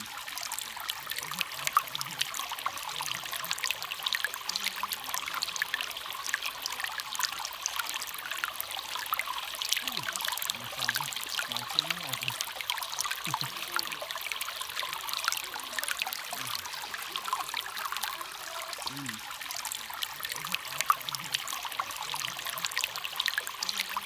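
Small waterfall: water falling and trickling steadily, with many small splashes.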